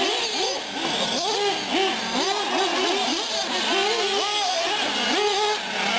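Several nitro RC cars' small two-stroke glow engines revving up and down over and over, their screaming pitches overlapping as the cars throttle on and off around the track.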